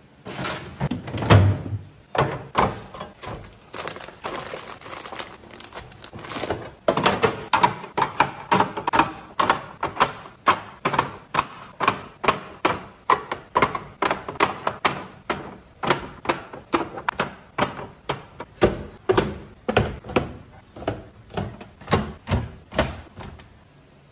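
Fruit and eggs being set into a refrigerator's plastic crisper drawer and egg tray: a quick run of light clicks and knocks, about two a second, with some rustling in between.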